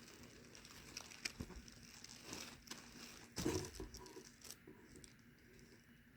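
Wrapping tissue paper rustling and crinkling as it is handled, in scattered light crackles with a louder rustle about three and a half seconds in.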